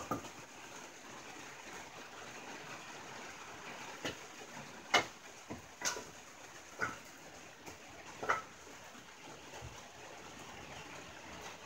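Rain on a tin roof: a steady hiss of rainfall with about six louder, sharp taps at irregular intervals on the metal, the loudest about halfway through.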